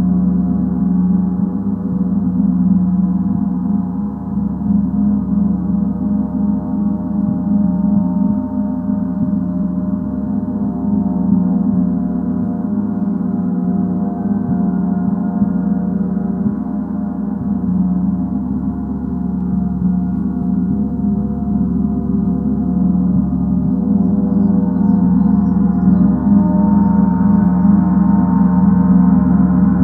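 Gong sounding in a continuous, sustained wash of many overlapping tones, growing a little louder toward the end.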